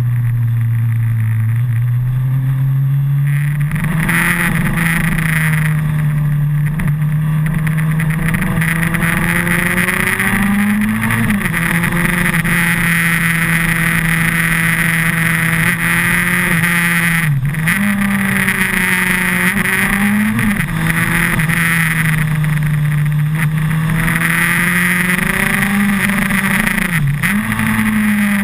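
2008 Suzuki Hayabusa's 1340 cc inline-four engine running under way, heard from a camera mounted on the bike. The revs jump up a few seconds in, then hold steady with about four brief dips and recoveries as the throttle is eased and reopened, over a steady rush of wind noise.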